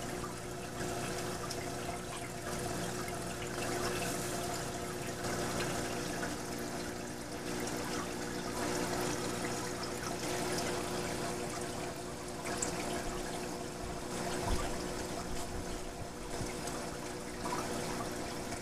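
Saltwater reef aquarium's water circulation: a steady trickling, splashing hiss of moving water over a low, steady hum of running equipment. A soft thud sounds about three-quarters of the way through.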